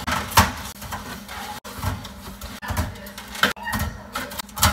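Aluminium A&W root beer cans clinking against each other and the clear plastic organizer bin as they are set in one by one: a series of short knocks, the loudest about half a second in and near the end.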